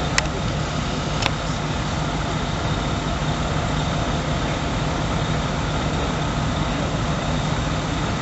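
Fire engine idling steadily, a constant low drone. Two short sharp clicks come near the start.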